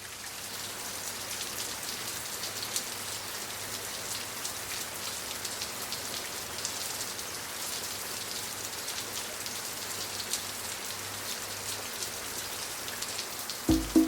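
Small garden waterfall splashing steadily into its pool, a continuous patter of falling water with fine drop clicks. Music starts right at the very end.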